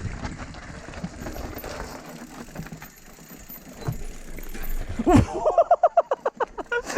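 Mountain bike rattling over a rough trail. About five seconds in, a person's voice starts in quick repeated gasping breaths, about six a second.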